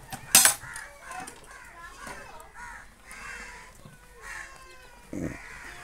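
A steel milk bucket clanks once, sharp and loud, about half a second in, and there is a duller knock near the end as buckets are handled on the ground. Crows caw repeatedly in the background.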